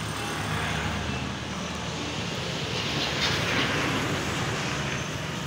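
Street traffic: a vehicle engine running steadily, with a louder swell of road noise about three seconds in as a vehicle passes.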